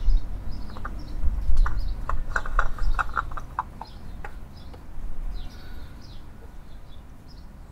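Muffled bumps and a run of short, sharp clicks as a new oil filter is screwed onto the engine by hand, with birds chirping faintly in the background.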